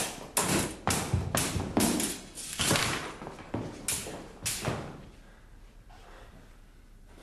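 Swords clashing in a fencing bout: a quick run of about a dozen sharp blade strikes over the first five seconds, then a lull.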